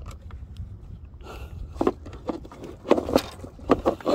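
Lures, tackle and plastic bait packets clicking and rattling as hands rummage through a plastic tackle box. The clicks and knocks come thicker in the second half, over a steady low rumble.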